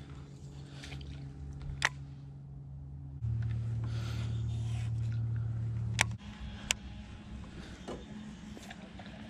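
Small electric trolling motor humming steadily. Its hum gets louder and lower about three seconds in, then steps up in pitch about six seconds in as the speed setting changes. A few sharp clicks sound over it.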